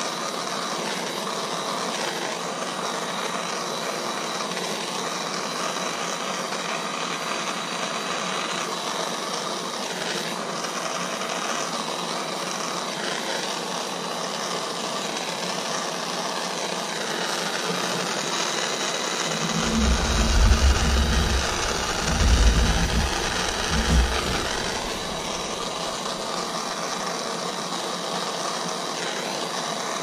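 Handheld gas soldering torch burning with a steady hiss, its flame heating a silver buckle tip to flow solder onto a rope edge and flower. About two-thirds of the way through, a few seconds of low rumbling bumps come over the hiss.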